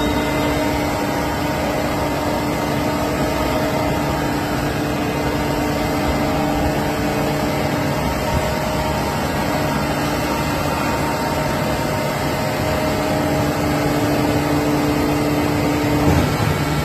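Hydraulic metal baler running: a steady machine hum from its motor and hydraulic pump, with a brief change in the sound near the end.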